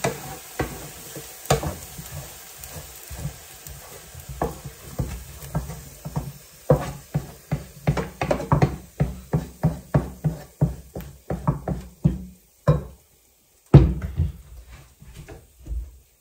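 Wooden spatula scraping and tapping against a frying pan as sautéed garlic and onions are scraped out into a stainless steel pot, with a fast run of taps in the middle. A single loud knock comes near the end.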